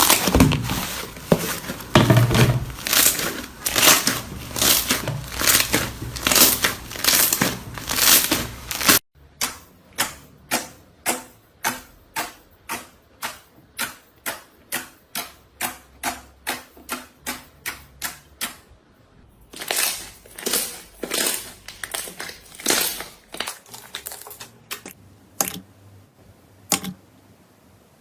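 Slime being pressed and squished by hand, making crisp clicking and popping sounds. A dense run of pops breaks off suddenly about nine seconds in, followed by evenly spaced pops about three a second, then scattered clusters of clicks.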